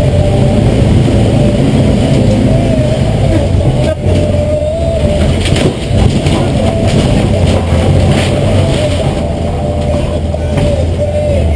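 Air-cooled flat-four engine of a 1964 VW bus running under load off-road, heard from inside the cab, with the body and loose parts clunking and rattling over rough ground, most between about four and eight seconds in.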